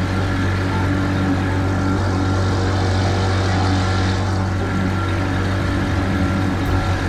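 Small aluminium fishing boat's motor running steadily under way, with water rushing along the hull.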